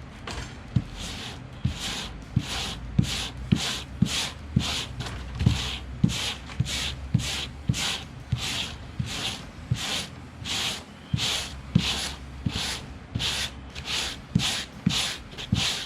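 Wire brush scrubbing crumbling old foam off a truck headliner board in rhythmic strokes, about two a second, each a scratchy rasp with a light knock.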